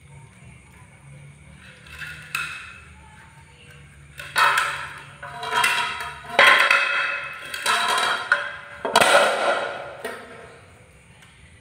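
A macaque and a cat tussling, with a run of loud, harsh animal calls in several bursts from about four seconds in until shortly before the end.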